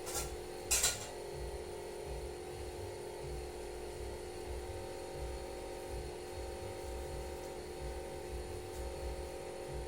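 Two brief rustling snaps of latex examination gloves being pulled on, both within the first second, the second the louder. A steady machine hum with several pitched tones continues under them and afterward.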